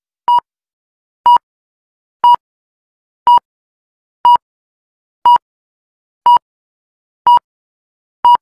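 Workout countdown timer beeping: nine short, identical electronic beeps, one per second, counting off the last seconds of an exercise set.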